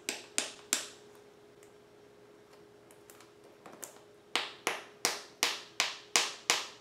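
Sharp, evenly spaced clicks, about three a second, as a taped-shut package is worked open by hand. A few come at the start, then a quiet gap, then a steady run from about four seconds in, over a faint steady hum.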